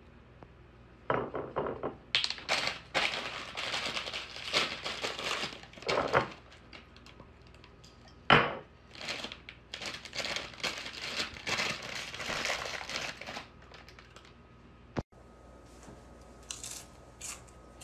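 Plastic chip bag crinkling in bursts as it is handled, with one sharp knock a little past the middle.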